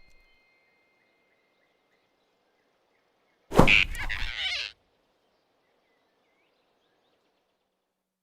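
A single sudden loud impact, followed by about a second of rushing noise that cuts off, about halfway through. Around it there are only faint chirps.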